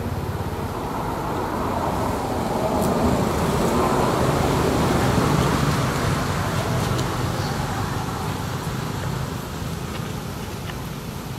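A motor vehicle passing nearby, its engine and road noise swelling to a peak about halfway through and then slowly fading.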